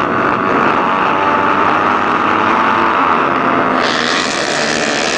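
A pack of four-stroke pit bike engines revving together at the start line, then going to full throttle as the bikes launch about four seconds in, where the sound turns suddenly harsher and brighter.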